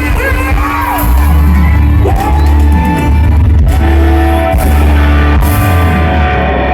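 Live forró music from a band over a loud sound system, with a heavy bass line.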